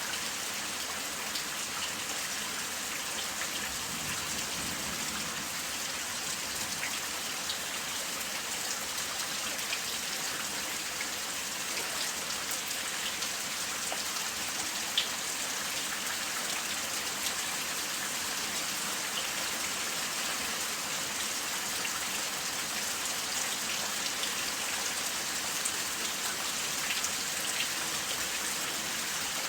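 Steady rain falling: an even hiss with scattered individual drops ticking, one sharper drop hit about halfway through.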